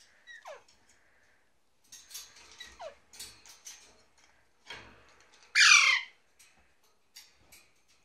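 Caged parakeets calling: two short calls that slide downward in pitch, about half a second and nearly three seconds in, then a loud, harsh squawk near six seconds. Faint scratching and clicking lie between the calls.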